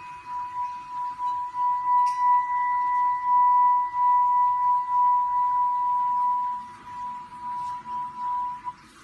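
Small pearl-coloured crystal singing bowl with a handle, sung with a wand around its rim: one high, steady ringing tone that swells with a slow pulsing wobble, with a brief tick of the wand about two seconds in. The tone cuts off suddenly near the end as the bowl is damped.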